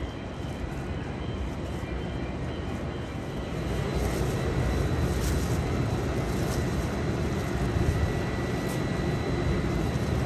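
JR 255 series electric train standing at the platform, its onboard equipment and fans running with a steady hum and a faint high whine. The hum gets louder about four seconds in.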